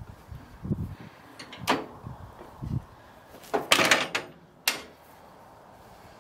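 Metal clunks and rattles from a garden tractor's rear-mounted rototiller being lifted into its raised position. A few separate knocks come first, then a loud clatter about three and a half seconds in and a last sharp knock just before five seconds.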